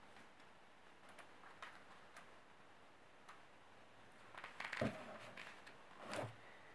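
Faint handling sounds: a few light ticks, then a brief cluster of clicks and rustling with a soft knock about five seconds in, and another short rustle near the end.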